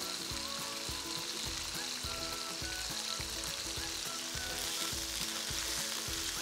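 Sliced chicken, garlic and shallots sizzling steadily in hot oil in a wok as a wooden spatula stirs.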